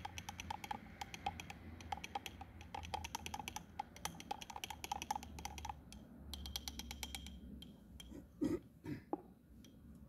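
A thin stick stirring inside a small glass jar, clinking quickly and evenly against the glass as copper fungicide powder is dissolved in water. The clinking stops about six seconds in, and a couple of louder handling knocks follow near the end.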